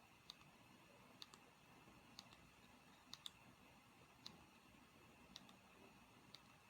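Near silence with faint, sharp button clicks, roughly one a second and now and then two in quick succession.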